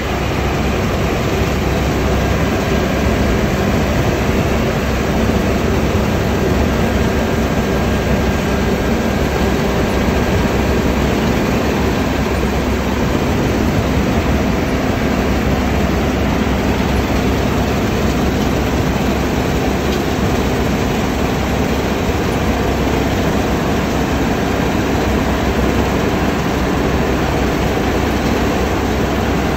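New Holland combine harvester running steadily under load, a constant heavy engine drone mixed with the rush of its threshing gear.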